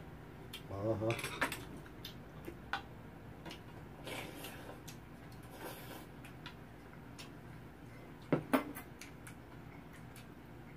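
Spoon and chopsticks clinking against soup bowls in scattered light clicks while two people eat, with a brief vocal sound about a second in.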